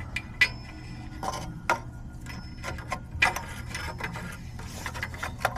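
Irregular clicks, light knocks and rubbing as a replacement oxygen sensor is handled, with a few short metallic ticks over a low steady hum.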